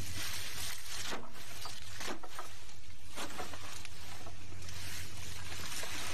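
A boat's engine running with a steady low hum under a constant hiss of wind and water.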